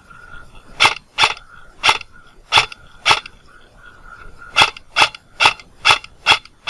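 Airsoft rifle fired in single shots: about a dozen sharp pops at an uneven pace, roughly two a second, with a pause of about a second past the middle.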